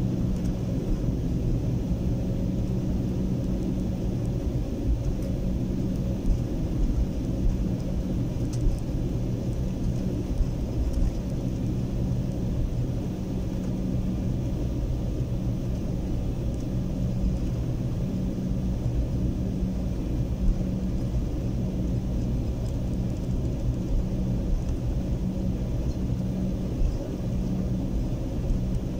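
Cabin noise of a jet airliner taxiing after landing: a steady low rumble of the engines at idle and the rolling aircraft, with a constant low hum and a few light clicks.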